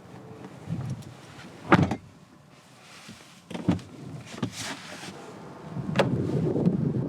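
Knocks and clicks from a Mitsubishi Outlander PHEV's interior fittings being opened and shut, the loudest about two seconds in, followed near the end by a rougher rustling noise that cuts off abruptly.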